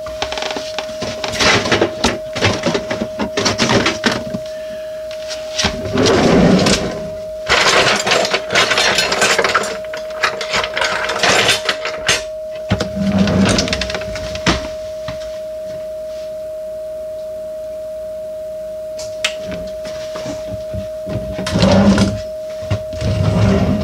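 Clattering, knocking and rustling as things are pulled out of and moved around a kitchen cabinet, in bursts with pauses between, over a steady tone held at one pitch throughout.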